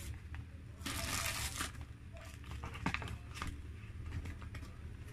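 Paper food tray and wrapper rustling as they are handled and set down, with a long crinkling burst about a second in, then a few sharp clicks of plastic utensils.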